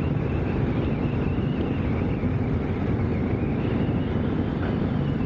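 Motorcycle engine running at a steady cruise, with wind rushing over the helmet microphone.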